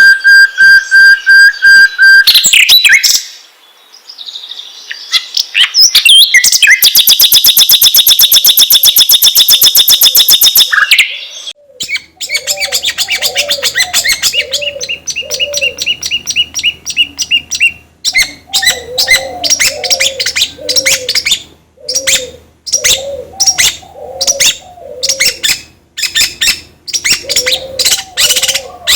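Songbird calls of the kind played as a lure to set cage birds singing. It opens with a held whistle broken by fast stutters, then a very fast, loud trill lasting several seconds. After that come rapid chirps and clicks over a string of lower repeated notes.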